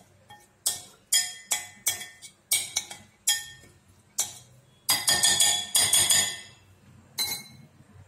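A spoon clinking against a glass bowl while stirring chopped vegetables, a string of sharp clinks with a quick flurry about five seconds in.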